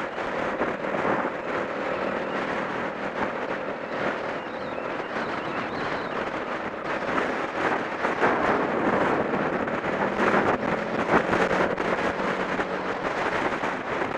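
Off-road motorcycle engine running while ridden, under heavy wind buffeting on the microphone.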